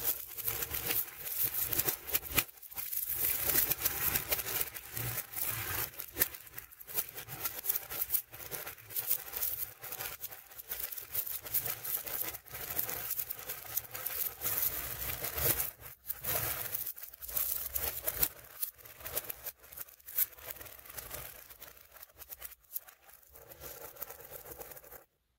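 Zen Magnets neodymium ball magnets clicking and rattling as strands of them are handled and laid onto a magnet-ball structure, with dense irregular clicks as the balls snap into place. The sound stops suddenly just before the end.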